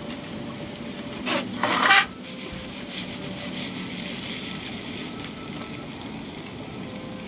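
Food frying in a pan on a camp stove: a steady sizzling hiss with faint crackles, and a couple of short rubbing or scraping sounds about one and a half seconds in.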